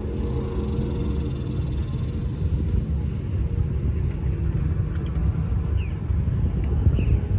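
Performance powerboat engines running at speed, a deep steady rumble as the boats race across the water.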